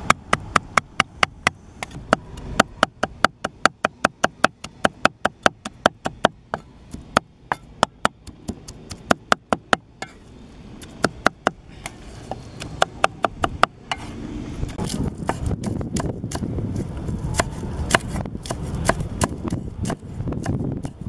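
Steel meat cleaver chopping rapidly on a round wooden chopping board, about three strikes a second, mincing prahok with diced vegetables, chillies and green onions. The chopping pauses briefly about halfway, and a low rumbling noise rises underneath in the last third.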